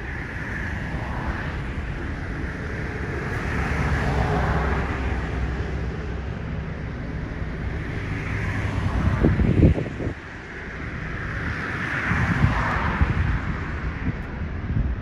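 Wind buffeting the microphone outdoors: a steady rush that swells and fades, with low rumbling gusts and a strong buffet about nine to ten seconds in.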